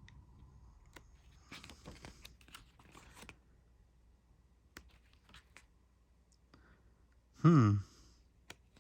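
Paper calendar pages being handled and turned, with scattered clicks and a brief rustle of paper a couple of seconds in. Near the end a short vocal sound from the person, falling in pitch, is the loudest thing.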